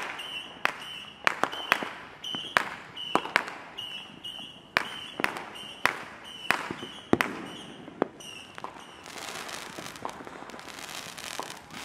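Fireworks and firecrackers banging in quick, irregular succession, more than a dozen sharp reports. From about nine seconds in, a firework launching close by with a rushing, crackling hiss.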